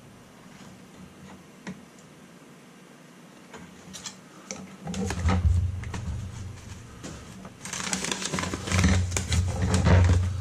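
A few light clicks, then from about five seconds in loud, irregular rustling and knocking of things being handled close to the microphone, with a low rumble.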